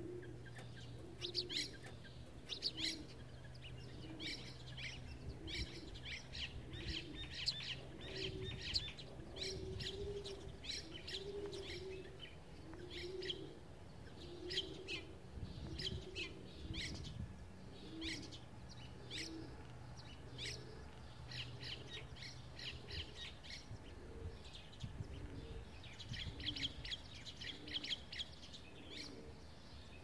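A flock of small songbirds chirping, with short high calls scattered throughout and a quick run of chirps near the end.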